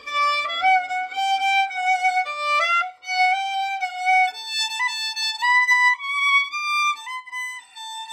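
Solo fiddle playing a slow melody of held notes high up on the instrument. About halfway through the tune steps up higher still, and it ends on a long held note.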